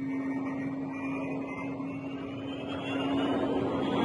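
Myasishchev M-55's twin turbofan jet engines running during a low pass and pull-up, with a turbine whine rising steadily in pitch over a steady low drone. The rushing jet noise grows louder near the end.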